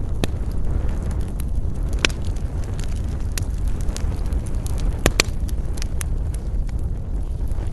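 Wood fire burning in a fireplace: a steady low rumble of flames with scattered crackles and pops, the sharpest about two seconds in and a quick pair about five seconds in.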